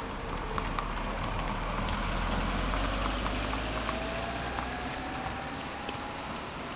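Outdoor street noise: a steady hiss of road traffic, with a faint rising whine from a passing vehicle and a few light clicks.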